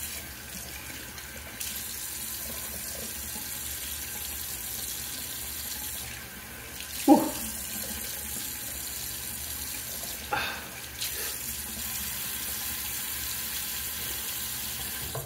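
Bathroom sink tap running steadily, the stream splashing as an alum block is rinsed under it. A brief sharp sound cuts through about halfway, and the water stops suddenly at the end as the tap is turned off.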